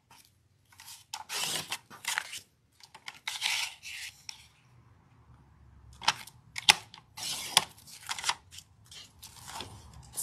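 Sliding paper trimmer cutting through paint-covered paper: the blade carriage is drawn along its rail in a couple of rasping strokes, followed about six seconds in by a few sharp clicks and taps as the trimmer and cut sheets are handled, with paper rustling.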